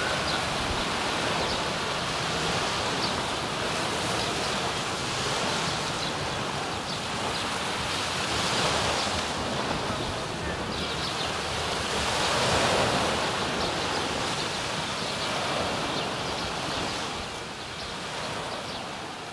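Small Black Sea waves washing onto a sandy beach, a steady wash of surf that swells louder about nine and thirteen seconds in.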